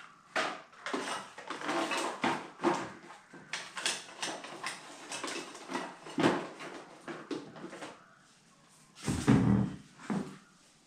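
Objects being handled and shifted on a tabletop: irregular clicks, knocks and rustling. It goes quiet about eight seconds in, then a heavy, low thump follows.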